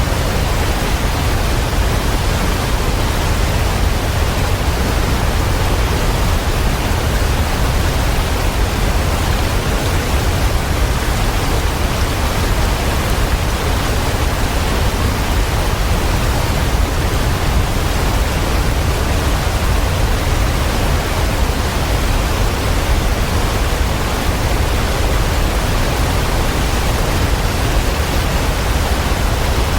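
Waterfall: a steady, unbroken rush of falling water, strongest in the deep low end, with no change in level.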